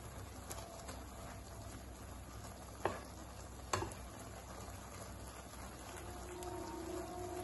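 Wooden spatula stirring noodles in a steel kadai over a faint sizzle, with two sharp knocks of the spatula against the pan about three and almost four seconds in.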